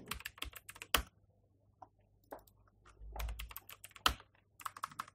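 Computer keyboard typing: quick runs of key clicks, with a louder single key strike about a second in and another around four seconds in.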